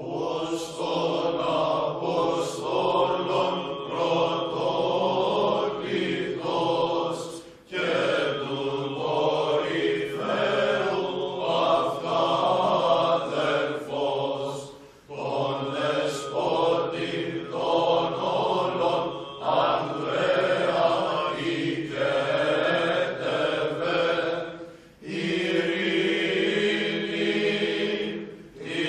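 Choral church chant: several voices sing slow, sustained phrases, with brief pauses between phrases.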